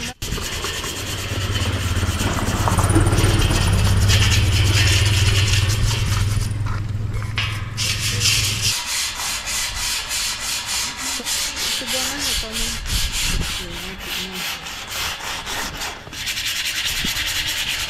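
Sandpaper rubbing on a rust-eaten steel grill frame in repeated back-and-forth strokes, several a second. A low steady hum runs underneath for the first half and cuts off about nine seconds in.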